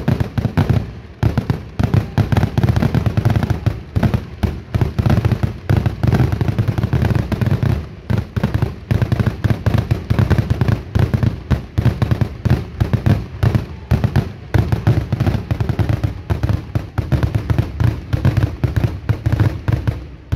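Fireworks going off in a dense, rapid barrage of loud bangs, many per second without a break.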